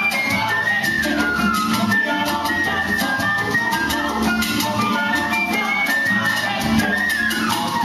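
Cuban son band playing an instrumental passage: a quick, busy melodic line over a steady percussion rhythm.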